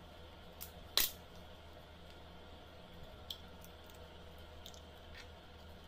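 Slime being squeezed and mixed by hand, giving scattered small sticky clicks and pops, with one sharper click about a second in, over a low steady hum.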